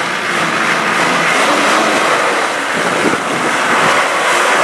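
Off-road 4x4's diesel engine working hard, a loud steady drone thick with noise.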